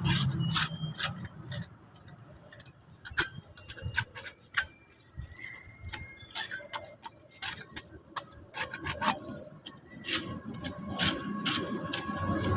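Irregular sharp clicks and scrapes, several a second, like hand tool work on a hard surface. About ten seconds in, a steady hum comes in and grows louder.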